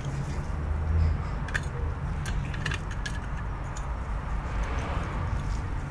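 A few light clicks and taps from handling a finned metal heatsink lifted off a circuit board, with tools picked up and set down, over a steady low hum.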